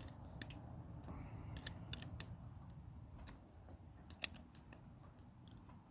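Faint scattered metallic clicks and taps of a wrench on battery terminal bolts as an old terminal is being loosened, the sharpest click about four seconds in, over a low steady hum.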